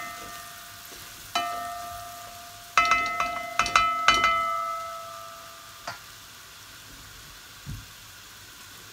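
A black spoon stirring curry-seasoned onions and vegetables frying in oil, knocking against the side of an aluminium pot so that the pot rings after each knock. There is a quick flurry of knocks about three seconds in, then a last knock near the six-second mark, with low sizzling throughout.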